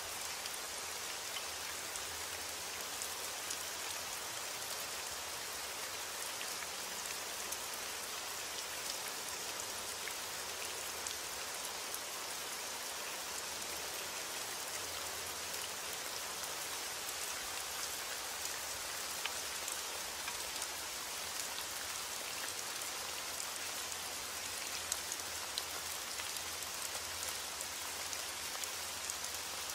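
Steady rain falling: a continuous even wash of many small drop ticks, with a few louder drops now and then in the second half.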